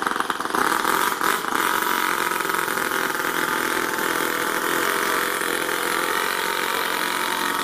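Toyan FS-L200 two-cylinder four-stroke nitro model engine running at a slow idle, steady and pretty damn loud, with a fast even putter, as the RC truck creeps along.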